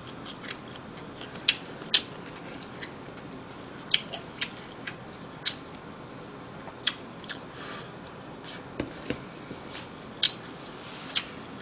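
A person eating close to the microphone: chewing and mouth smacks with irregular sharp clicks of chopsticks, about fifteen scattered through the stretch.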